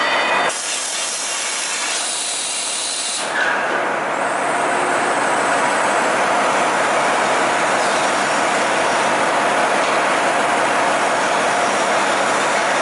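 Drill spindle head of a Ficep Gemini CNC plate-processing machine running, with a steady hiss that grows louder about three seconds in as the drill bit comes down to the steel plate.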